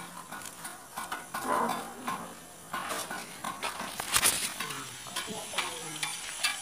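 Irregular clicks, knocks and scrapes of handling work: orange PVC electrical conduit being worked on a gravelly concrete floor and the recording phone being picked up. The loudest knocks come about four seconds in, with faint voices at times.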